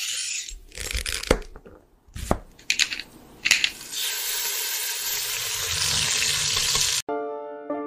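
Sound effects of an animated intro: a few quick whooshes and sharp hits, then a steady hiss for about three seconds that cuts off suddenly. Piano music starts near the end.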